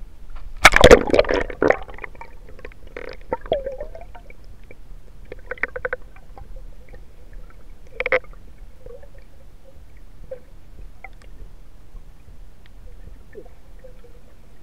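Camera plunging into river water with a loud splash about a second in, then muffled underwater sound: gurgling bubbles, small blips and scattered knocks, with a few short louder bursts from kayak paddle strokes in the water.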